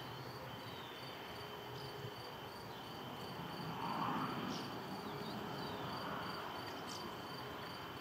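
Crickets trilling steadily in two continuous high tones over a soft outdoor hiss. A few short, faint chirps cut in, and the hiss swells briefly about halfway through.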